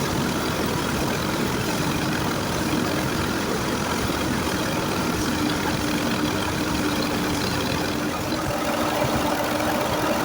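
Wheat thresher and its driving engine running steadily: a dense, even machine noise with a steady hum through it.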